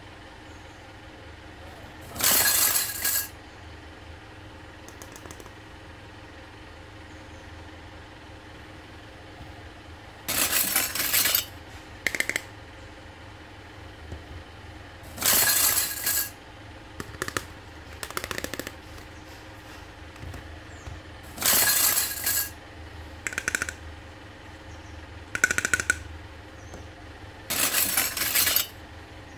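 Hard plastic toy kitchen pieces clattering as they are handled and set down on a table: five short rattling clatters a few seconds apart, with lighter clicks between, over a steady low hum.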